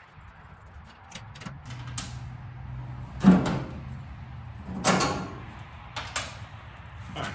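A run of separate clunks and scrapes, the loudest about three seconds in, from the front body clip of a Cushman Titan utility vehicle being worked loose and handled.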